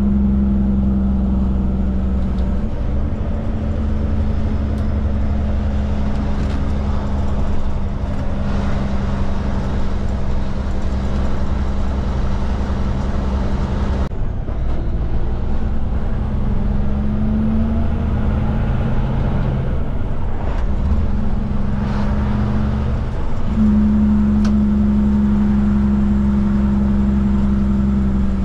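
Kenworth truck's diesel engine heard from inside the cab while driving, a steady drone whose pitch steps up and down several times.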